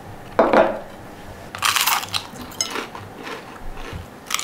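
A glass plate knocks down onto a countertop, then a crispy lavash-wrapped samosa crunches loudly as it is bitten and chewed. The crunches come in bouts, loudest about a second and a half in and again at the end, with smaller crackles between.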